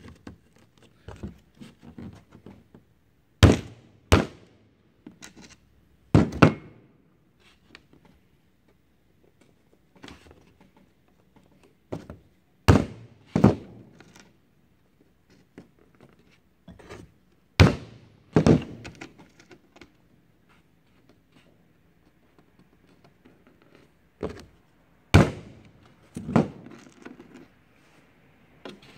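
Sharp knocks of tools and hard objects on a wooden workbench, mostly in pairs under a second apart and recurring every several seconds, with quieter handling clatter between them.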